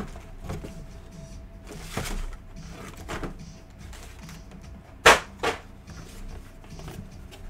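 Cardboard box and plastic blister packaging being handled: scuffs and rustles, with two sharp snaps close together about five seconds in.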